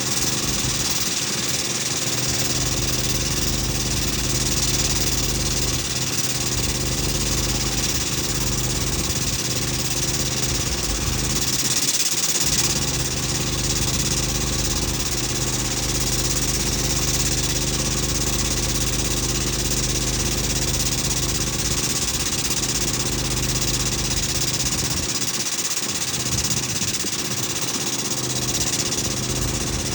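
An engine idling steadily at a constant speed, with no revving.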